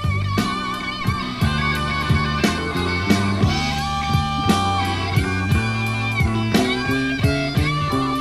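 Background rock music: electric guitar playing sustained, bending lead notes over bass and a steady drum beat.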